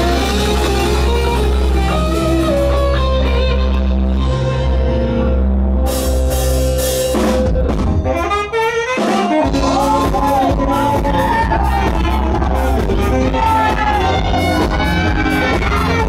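Loud music with heavy bass. About eight seconds in, the bass cuts out for a moment and the music switches to a different-sounding passage.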